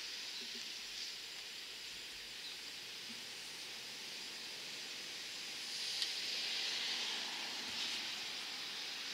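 Steady high hiss of outdoor background noise, with a brief click about six seconds in.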